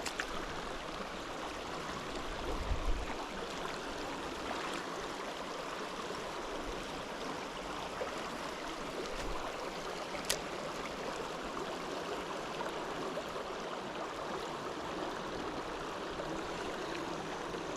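River water running steadily over a shallow riffle, an even rushing hiss. A low thump sounds near three seconds in, and a single sharp click about ten seconds in.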